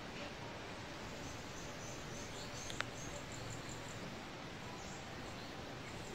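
Outdoor woodland ambience: a steady background hiss with a run of faint, rapid high-pitched chirping through the middle, and one sharp click a little before the middle.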